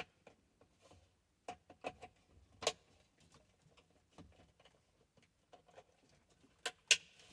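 Scattered clicks and taps of plastic wiring-harness connectors being handled and plugged into a 2015 Subaru STI body control module, the sharpest click near the end.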